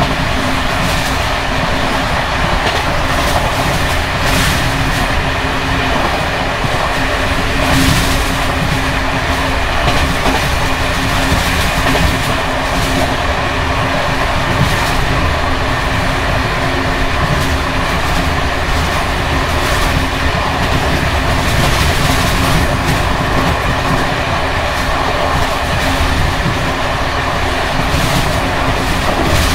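Passenger coach on worn Görlitz V bogies running over jointed, uneven track, heard through an open window: a loud, continuous rattling of wheels and bogie, with irregular sharper knocks and a steady hum underneath. The racket comes mostly from the bogies' brake rigging bouncing on the bad track, a sign of many kilometres run since the last major overhaul.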